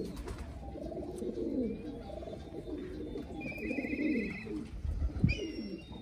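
Domestic pigeons cooing, low and bending in pitch. A short high rapid trill comes twice in the second half, and a single sharp thump lands about five seconds in.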